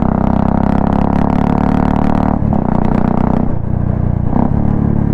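Royal Enfield Classic 350's single-cylinder engine running through a straight-cut pea shooter exhaust with the dB killer removed, a steady loud thump while riding. The note drops out briefly a couple of times in the second half, as the throttle is eased.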